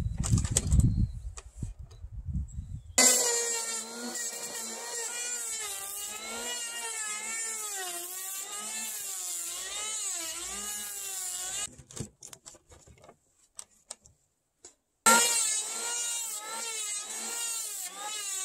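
A few heavy wooden knocks as a log is set on sawhorses, then an electric hand planer shaving the log, its whine wavering up and down as it is pushed along. It stops about twelve seconds in and starts again suddenly about three seconds later.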